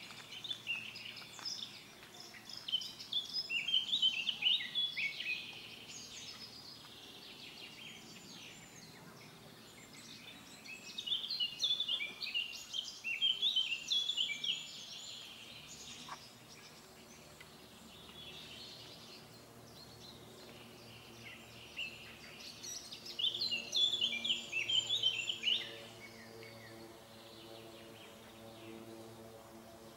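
A songbird singing in three bouts of quick, high chirping notes, each a few seconds long and roughly ten seconds apart, over a faint steady background hiss.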